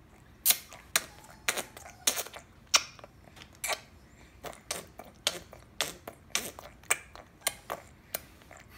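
A baby's lips and mouth smacking wetly on a plastic feeding spoon while being spoon-fed, a string of sharp irregular clicks nearly two a second.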